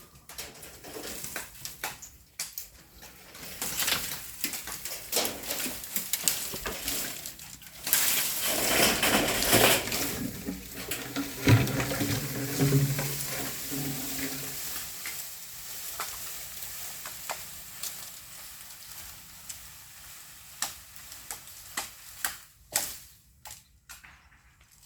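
Bamboo being cut and handled: stems and dry leaves rustling and crackling, with scattered sharp knocks and a loud rushing swish about eight seconds in.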